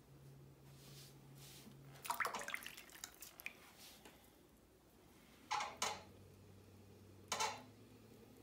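Water splashing and dripping as a potter's sponge is wetted and squeezed beside the wheel, in a cluster about two seconds in and then three short bursts. Under it runs the low hum of the electric potter's wheel, which changes pitch partway through.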